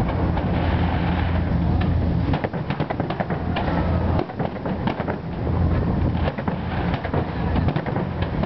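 Fireworks display: aerial shells bursting in a rapid, continuous run of sharp bangs and crackles over a steady low rumble.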